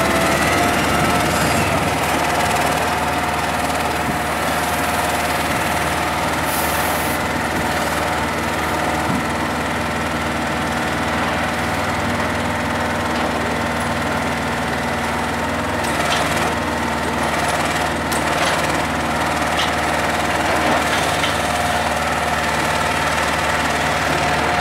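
Diesel truck engine running steadily to drive a truck-mounted hydraulic loader crane lifting a concrete block, with a steady whine over the engine. A few short clicks about two thirds of the way through.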